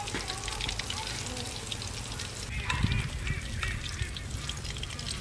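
Battered tilapia pieces frying in oil in a wok, with a steady crackle and small spattering pops. Honking animal calls sound over it, loudest about three seconds in.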